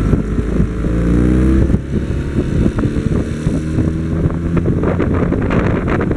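Vehicle engine accelerating, its pitch climbing then dropping abruptly about two seconds in as it shifts up, then running on more steadily. Wind buffets the microphone near the end.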